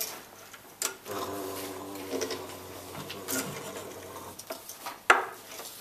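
A person imitating a truck engine with a buzzing drone of the voice for about three seconds, its pitch wavering slightly. A sharp knock follows about five seconds in.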